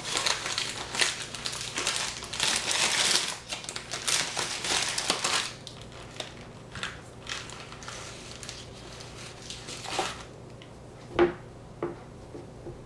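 Crinkly wrapping being handled and crumpled, a dense rustle for the first five seconds or so, then in short scattered bursts, with a few sharp knocks near the end.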